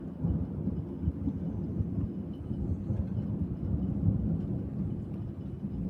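Rolling thunder: a deep, uneven rumble that swells about a quarter of a second in and keeps rolling.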